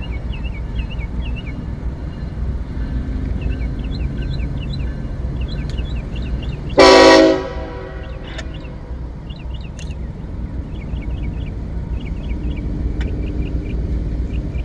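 Freight train's diesel locomotive air horn giving one short blast about seven seconds in, over a steady low rumble as the train approaches.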